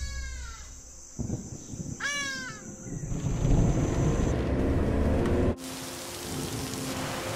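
Two loud, falling bird calls about two seconds apart, then a low rumble of thunder. About five and a half seconds in it cuts suddenly to a steady hiss of rain.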